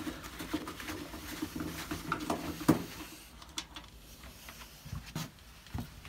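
Faint scraping and a few sharp clicks of a screwdriver undoing a screw inside a washing machine's plastic detergent-drawer housing.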